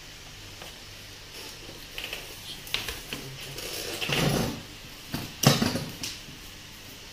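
Handling noise as a plastic PTZ dome camera is moved and set down on a desk: scattered clicks and rustling, a dull thump about four seconds in and a sharp knock, the loudest sound, about five and a half seconds in.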